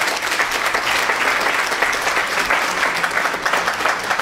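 Audience applauding steadily, the dense patter of many people clapping at once.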